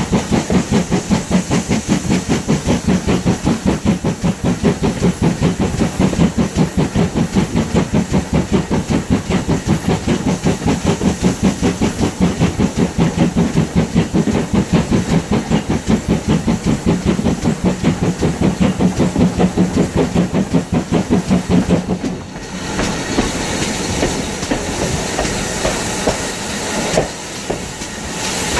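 GWR 56xx class 0-6-2 tank engine's steam exhaust chuffing in an even rhythm, about three beats a second, with steam hissing. About 22 seconds in the beats stop and the train rolls on, wheels clattering over the rail joints.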